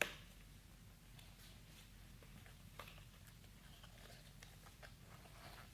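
Quiet handling noise from a knife's box being handled: one sharp knock right at the start, then faint scattered taps and rustles.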